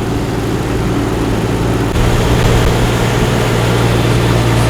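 Motorboat engine running steadily under way, a low drone with wind and water noise over it. It gets louder about two seconds in.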